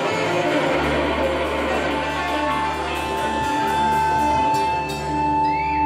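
Live band playing amplified guitar and keyboard music, the band settling from about a second in into a held low bass note and sustained chord.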